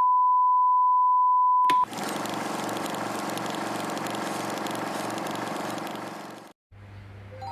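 A steady single-pitched beep tone for about two seconds, cut off abruptly, followed by a dense, even rushing noise that lasts about five seconds and fades out near the end.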